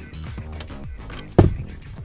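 Background music with a steady beat and repeated falling bass notes. A single loud knock cuts through it about one and a half seconds in.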